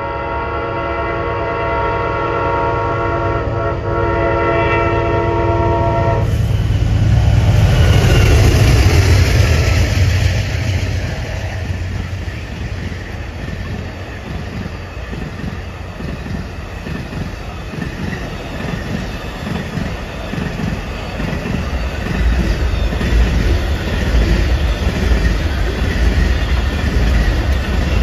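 Amtrak Auto Train sounding its multi-note locomotive horn for about six seconds, with a short break near four seconds, as it approaches a grade crossing. The locomotives then pass, loudest about nine seconds in. After that comes the steady rolling of the bilevel passenger cars and the enclosed auto-carrier cars, their wheels clacking over the rails.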